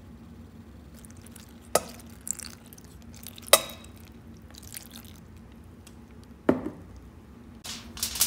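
Coffee-and-tea dye dripping from a glass onto wet fabric in a stainless steel pot, with a few sharp clinks of glass on steel, over a steady low hum.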